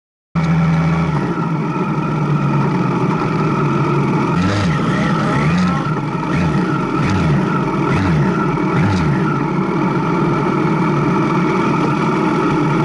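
Motorcycle engine running steadily, with a few brief rises in pitch around the middle.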